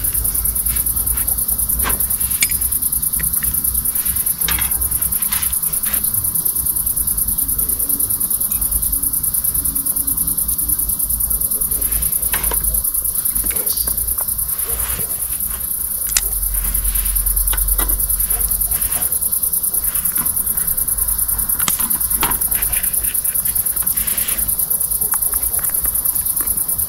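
Crickets trilling in one steady, high-pitched, unbroken chorus, with scattered sharp crackles throughout.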